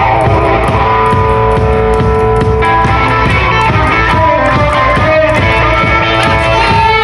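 Rockabilly band playing live: guitar over a steady drum beat and bass, with no singing.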